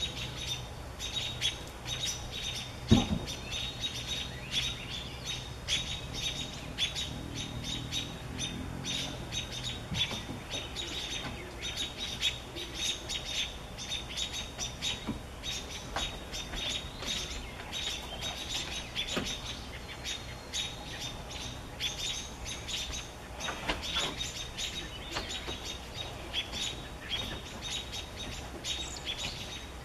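American robins giving many sharp, repeated alarm chirps while mobbing a perched great horned owl; such aggressive chirping is a good sign of a predator nearby. A single thump about three seconds in is the loudest sound.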